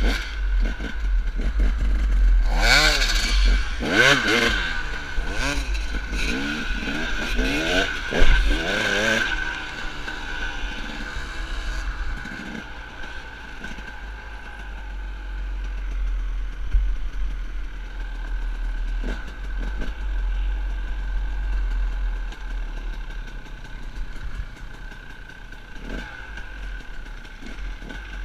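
Dirt bike engine revving hard up and down through the gears for the first several seconds, then running at lower, steadier revs as the bike rides on, over a constant low rumble.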